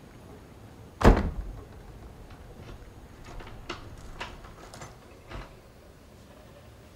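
A door shuts with one loud thud about a second in, followed by a string of lighter clicks and knocks and a soft thump near the end.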